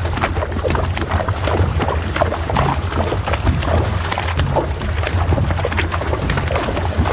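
Horses' hooves splashing and knocking on stones as they wade through a shallow, rocky stream, with a steady low rumble underneath.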